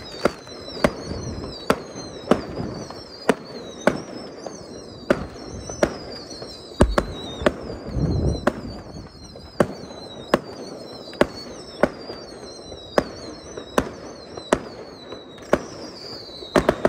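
Fireworks going off: a string of sharp bangs, roughly one a second, with high, wavering whistles falling in pitch between them. A brief low rumble comes about halfway through.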